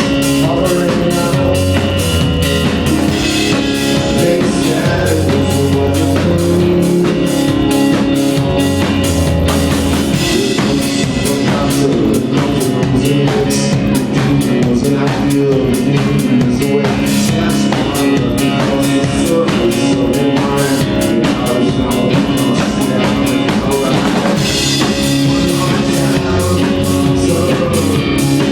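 Live band of drum kit, upright bass and guitar playing a song, the drums keeping a steady, busy beat. Long low bass notes are prominent at first, drop away for most of the middle, and come back near the end.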